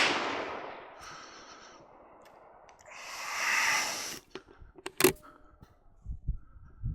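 The echo of rifle shots fired together rolls away and fades over about two seconds. A breathy hiss swells and dies away about three seconds in, then a sharp click comes a second later and soft thumps near the end.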